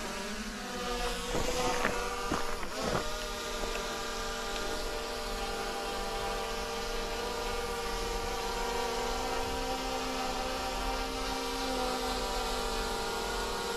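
Camera drone hovering close by: a steady multi-pitched propeller whine that wavers briefly in the first few seconds, then holds level.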